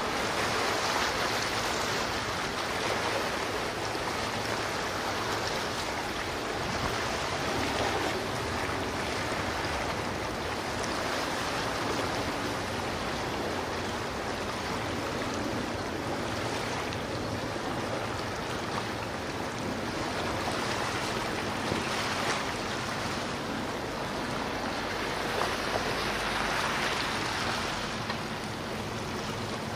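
Steady rushing of sea water and waves, swelling gently.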